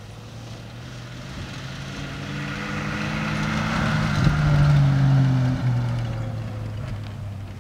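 A 1962 Rover P4 110's straight-six engine pulling hard as the car drives past on a dirt track. It grows louder to a peak about four to five seconds in, then drops in pitch and fades as it moves away, with tyre noise on the loose dirt.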